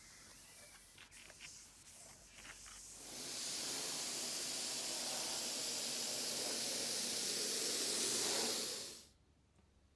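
A few faint clicks, then about three seconds in a paint spray gun lets out a steady hiss of air and paint for about six seconds and cuts off sharply as the trigger is released.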